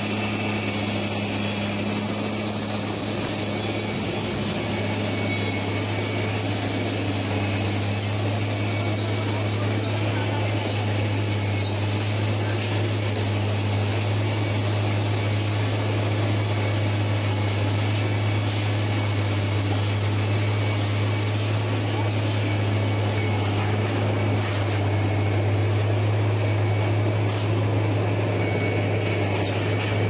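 Rail track-laying machine running with a steady, loud low hum over constant machinery noise.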